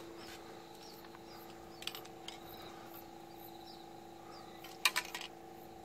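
Quiet outdoor background: a steady low hum with faint, evenly repeating high chirps. A few short clicks sound over it, the loudest about five seconds in.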